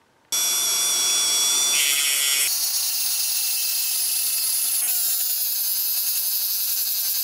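High-speed handheld rotary tool spinning an abrasive buffing wheel against a brass ice box latch, polishing it: a loud, steady, high-pitched whine that starts suddenly and shifts in tone a few times.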